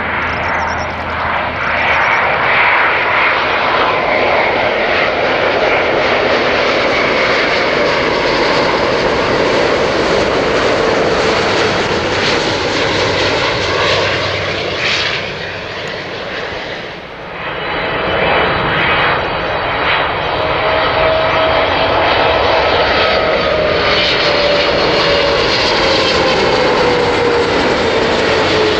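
Jet airliners on landing approach, loud and continuous. First an Airbus A350-900's Rolls-Royce Trent XWB turbofans, with a rushing roar and a whine that slowly falls in pitch as it passes. After a brief dip about 17 s in, a Boeing 777's engines follow with the same rushing noise and falling whine.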